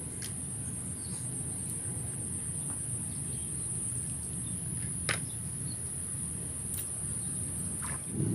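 Steady high-pitched insect trilling over a low, even outdoor rumble, with a sharp click about five seconds in and a few fainter clicks.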